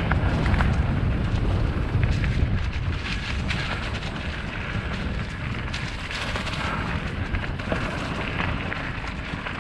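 Wind buffeting the microphone during a trail ride, with a steady rumble of rolling over the dirt trail and scattered small clicks and rattles. The buffeting is heaviest in the first few seconds.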